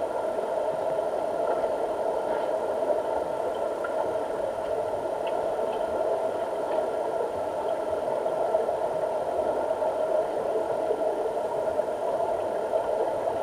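Steady underwater drone of a diving pool heard through a submerged camera, a low, even hum with a few faint held tones above it and a few faint ticks.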